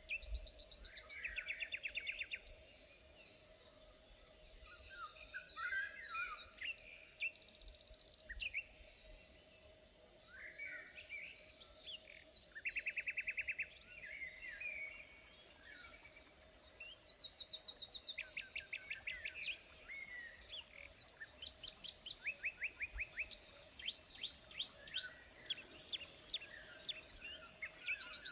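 Several songbirds calling and singing over one another, with short chirps and repeated rapid trills of evenly spaced notes, the trills growing more frequent in the second half. A faint steady hum runs underneath.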